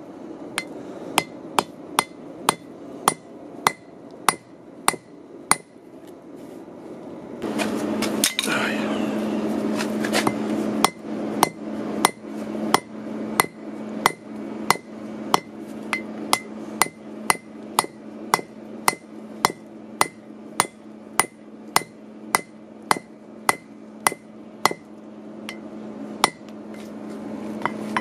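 Hand hammer striking a red-hot bolt on an anvil, upsetting its end so it mushrooms out: about two even blows a second, each with a short ring from the anvil. The blows pause for about two seconds, then a loud steady hum comes in and runs under the hammering.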